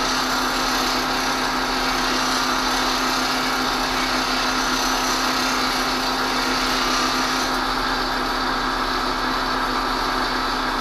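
Bench grinder running with a steady hum while a steel plane iron is held against its wheel, giving an even grinding hiss. The iron's bevel is being ground until the flat at its edge is nearly gone.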